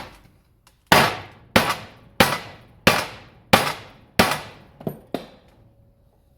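Hammer blows on a steel car bumper being beaten back into shape: seven evenly spaced strikes, about three every two seconds, each ringing briefly, then two lighter taps.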